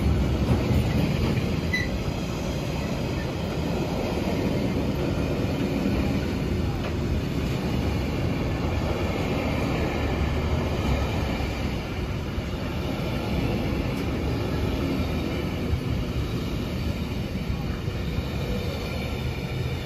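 Freight train rolling past, its wagons rumbling steadily over the rails with a high wheel squeal ringing above the noise.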